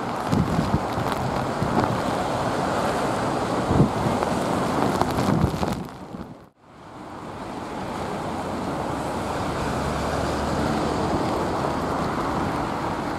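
Gusting storm wind buffeting the microphone over the rushing noise of airliner jet engines. The sound dips away to almost nothing about halfway through, then builds back up into a steadier rush of wind and engine noise.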